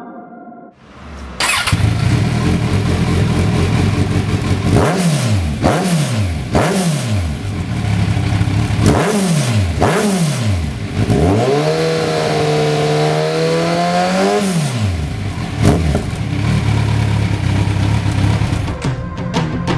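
Kawasaki Z1000's inline-four engine through a Lextek RP1 aftermarket silencer, revved on the stand. It idles, then rises and falls in about six quick throttle blips, is held at raised revs for about three seconds, and drops back to idle with one more short blip.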